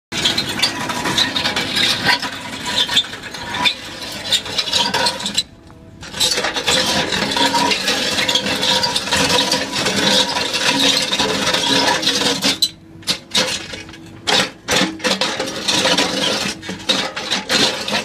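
A 450 mm rock-toothed auger grinding and cutting through a concrete slab, with concrete chips clinking and rattling over the steady hum of the machine driving it. The grinding drops away briefly twice, about five and a half seconds in and again around thirteen seconds.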